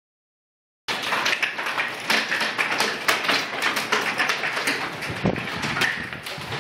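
Hailstones pelting the house, heard from inside: a dense, irregular clatter of hard ticks and knocks that starts about a second in.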